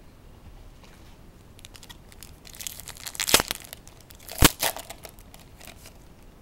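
Foil trading-card pack wrapper crinkling and tearing open by hand, with two sharp, loud crackles about three and four and a half seconds in.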